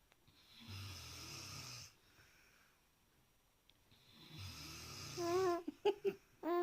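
Two long, rasping snores about three and a half seconds apart; the second ends in a wavering, whistling tone. Three short, loud, high-pitched voice sounds follow near the end.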